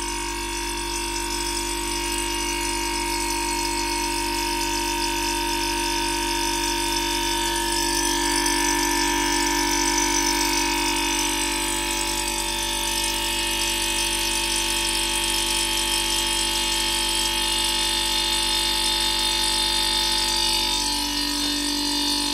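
Hitachi 1.5-ton air-conditioner compressor running with a steady electric hum while it pumps its discharge pressure up against a gauge in a compression test. It builds pressure quickly, which the owner takes as a sign that the compressor is still good.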